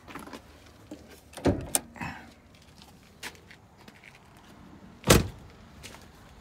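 Car door of a junked Ford Taurus being handled and pushed shut: a dull thump about a second and a half in, a couple of smaller knocks, then a louder thump about five seconds in.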